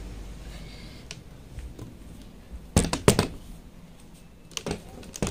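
Handling noise from the recording phone being carried and set down: a few scattered sharp clicks and knocks, the loudest pair about three seconds in.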